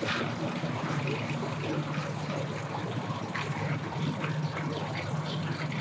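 An engine idling with a steady low hum, with faint voices in the background.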